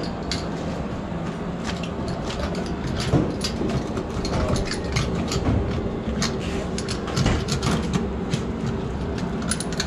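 Irregular clicks and scrapes as a rubber repair patch is pressed by hand and worked with a stitching roller onto the inside wall of a dump truck tyre. A steady low hum runs underneath.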